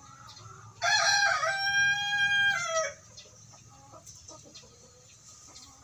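A rooster crows once, a call of about two seconds that rises at the start, holds steady, then drops away at the end.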